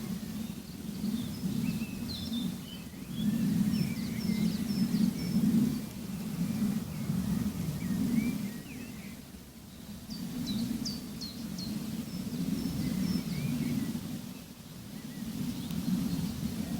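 Small birds chirping and trilling in short, scattered calls over a low, uneven outdoor rumble that swells and fades every second or two.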